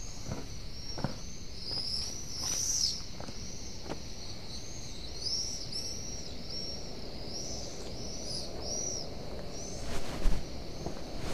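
Small birds chirping over and over in short, arched calls, with footsteps and a few louder knocks about ten seconds in.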